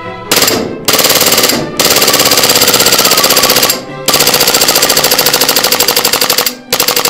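RST steel-slide VFC Glock 18C gas-blowback airsoft pistol firing full auto: five bursts of rapid, evenly spaced shots with the slide cycling on each shot, the longest burst lasting about two and a half seconds.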